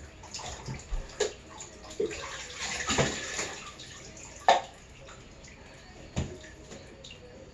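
Water splashing and sloshing in a bathtub while a dog is washed, in irregular bursts with a few sharp knocks, the loudest about four and a half seconds in; it quietens over the second half.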